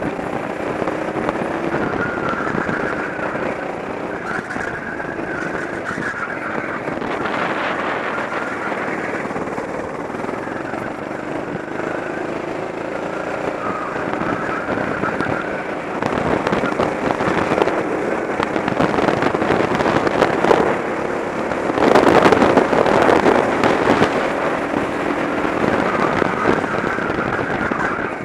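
Go-kart engine running as the kart laps a track, its pitch rising and falling with throttle through the corners, heard from a camera mounted on the kart. The noise swells louder twice in the second half.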